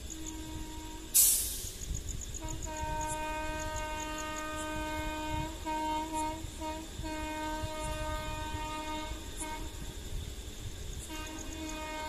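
Multi-tone locomotive air horn of an approaching train, sounding long steady chords. One starts a couple of seconds in with two brief breaks and stops near the three-quarter mark, and another begins near the end. A sudden short burst of hiss about a second in is the loudest moment.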